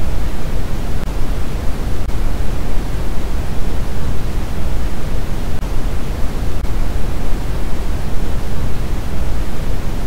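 Electronically generated white noise: a constant, loud, unchanging hiss, heavier in the bass than in the treble.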